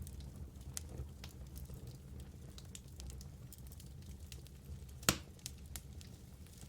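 Wood fire burning in a fireplace, with a steady low rumble and scattered crackles. One loud pop comes about five seconds in.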